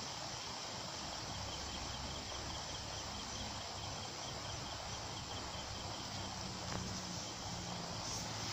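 Low steady hiss of fish roe frying in a steel kadai, with a cricket chirping faintly and evenly at a few chirps a second.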